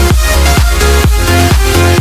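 Electronic dance music with a steady kick-drum beat and heavy deep bass.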